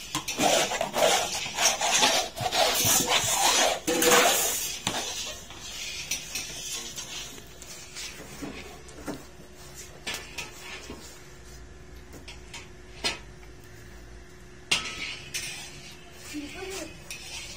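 A flat plate scraping and knocking against a large steel karahi as thick, crumbly sohan halwa mixture is scooped out. Dense scraping and clatter for about the first five seconds, then occasional single knocks.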